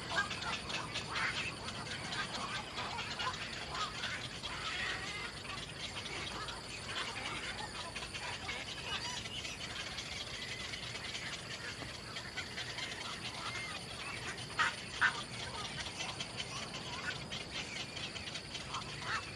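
Small birds chirping in short, irregular calls, with a few sharp clicks, over a thin, steady high-pitched tone.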